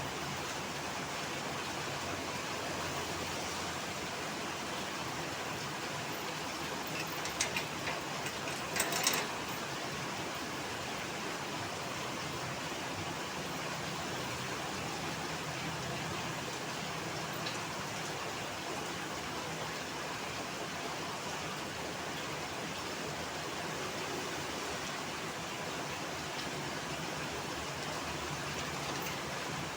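Heavy rain falling steadily, a continuous even hiss, with a short cluster of sharp clicks or knocks about seven to nine seconds in.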